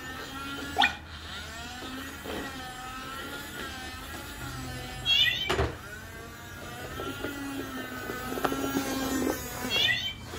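Battery-powered robot cleaning ball whining from its small electric motor as it rolls across a wooden floor, the pitch wavering up and down. It knocks against something about a second in and again about five and a half seconds in.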